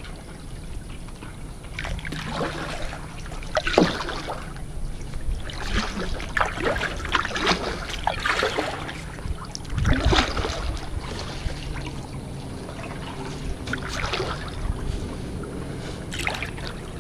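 Kayak paddle strokes dipping and splashing in calm water, with water dripping and trickling off the blades. The swishes come irregularly, every second or two, with a short pause near the middle.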